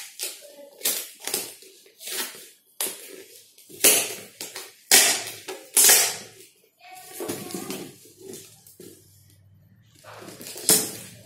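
Handling noises from a protein tub and its packaging: a quick series of crinkles, scrapes and knocks, with a quieter lull about two-thirds of the way through.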